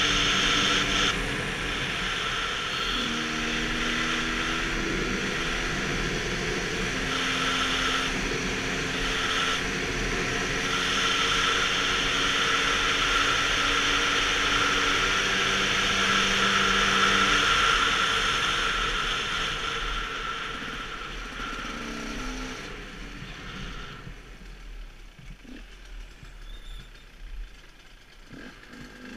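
Two-stroke KTM 125 enduro motorcycle running at riding speed, its engine note stepping in pitch a few times, under heavy wind noise on the helmet microphone. About twenty seconds in, the wind and engine fade as the bike slows, and it is much quieter near the end.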